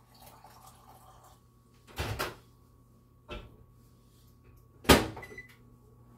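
Several sharp household knocks and bangs over a faint steady hum: a double knock about two seconds in, a shorter one a little after three seconds, and the loudest bang about five seconds in.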